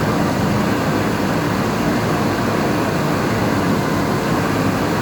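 Steady, unbroken running of a heavy vehicle engine, a continuous low drone with no change in pitch.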